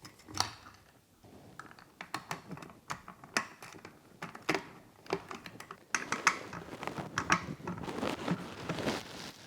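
Irregular light clicks, taps and small rattles of hardware being handled and fitted while a front fender is attached to a fat-tire e-bike. The clicks come thicker in the last few seconds.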